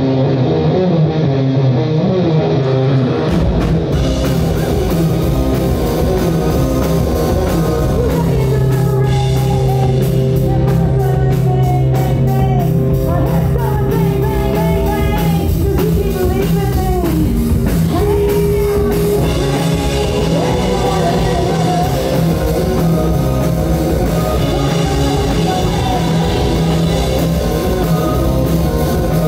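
Live garage-rock band playing loud: Farfisa combo organ, electric guitar and drum kit, with the full band and drums kicking in about three seconds in.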